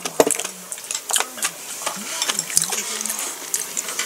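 Eating sounds: a handful of sharp clicks of chopsticks against a wooden soup bowl, with chewing in between.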